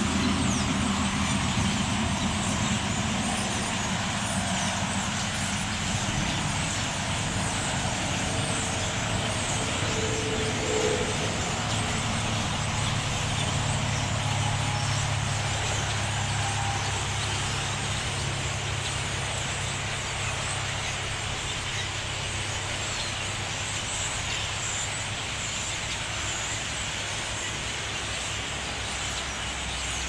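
A dense, steady chatter of a huge flock of red-winged blackbirds calling as they fly in to roost. Under it runs a steady low engine rumble of motor traffic.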